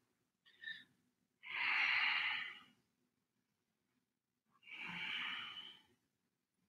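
A person breathing audibly while holding a yoga pose: two long, soft breaths about three seconds apart.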